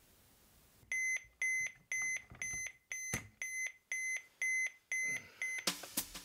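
Digital bedside alarm clock beeping, a high electronic beep about twice a second, going off at 5:15 a.m. until it stops about five seconds in. Music comes in near the end.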